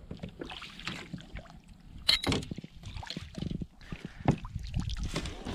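A hooked redfish splashing at the water's surface beside a kayak as it is scooped into a landing net. A few sharper splashes stand out about two seconds in and again just after four seconds.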